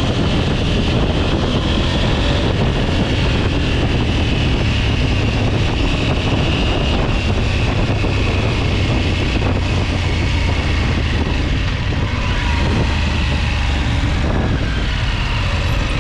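A vehicle running steadily: a continuous low rumble with no break.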